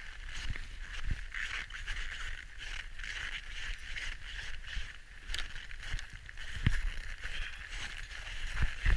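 Footsteps swishing and scraping through deep powder snow, with a few dull thumps as feet come down.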